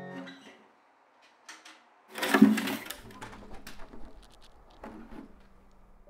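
Acoustic guitar, its once-broken neck repaired: a strummed chord dies away, then about two seconds in another chord is struck and fades out slowly.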